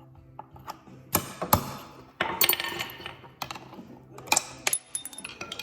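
Irregular metallic clanks and knocks, about half a dozen, some ringing briefly, from metal tools and engine parts being handled while the motorcycle engine is worked free of its frame.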